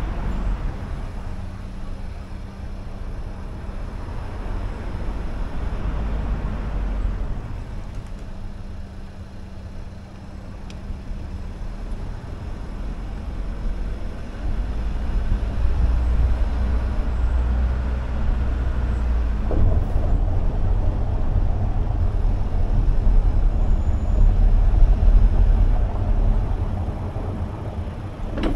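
A car driving on city streets: steady engine and road rumble, growing louder about two-thirds of the way through.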